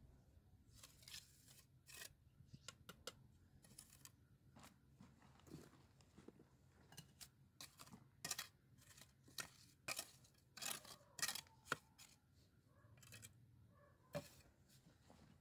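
A steel mason's trowel scraping and tapping on stones and wet cement mortar, in a string of short, irregular strokes that come thicker and louder in the second half.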